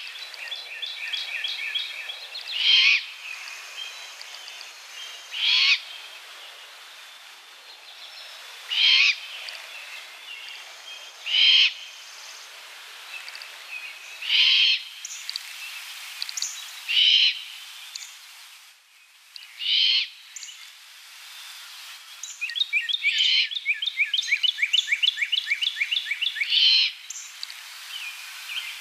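Great horned owl fledgling giving its harsh, high food-begging screech, about nine short calls at roughly three-second intervals. A rapid, high trill of clicks from another bird runs underneath and grows louder for a few seconds near the end.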